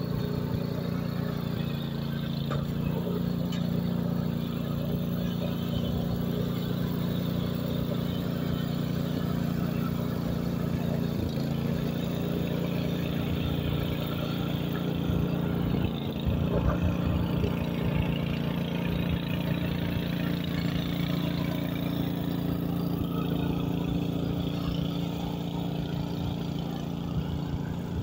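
Cessna Grand Caravan's single turboprop engine and propeller running, a steady drone with a couple of brief wavers in pitch.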